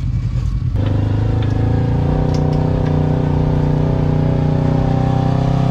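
Polaris RZR side-by-side being winched up out of a deep mud rut: a steady motor drone that steps up suddenly about a second in and holds at an even pitch as the machine climbs under the winch's pull.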